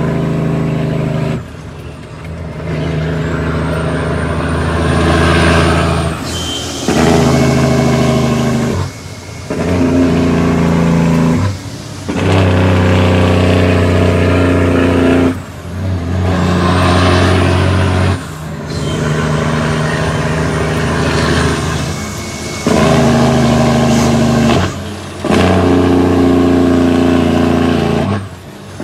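The Cummins ISX diesel engine of an International ProStar truck runs under load. The engine note drops briefly about every three seconds as the 18-speed transmission is shifted up through the gears, then pulls again.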